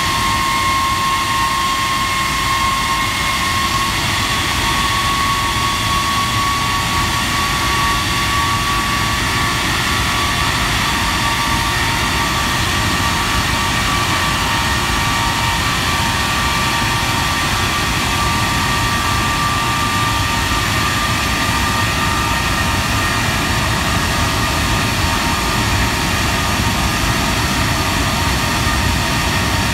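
Rolls-Royce Trent 895 turbofan on a Boeing 777 running steadily in a ground engine run: a loud, even rush of jet noise with a steady high whine running through it.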